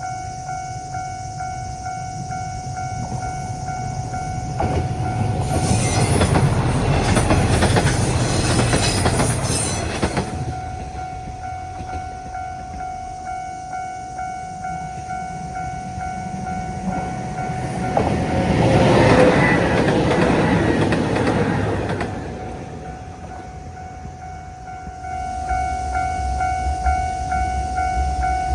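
Japanese level-crossing warning bell ringing in a steady, even clang while trains rush past over the crossing. The passing is loudest about 5 to 10 seconds in and again about 18 to 22 seconds in, with the bell standing out clearly again near the end.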